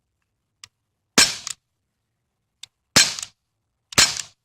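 Air gun (BB/pellet gun) fired three times in fairly quick succession, sharp cracks about a second and a half and then a second apart, each with a faint click just before it.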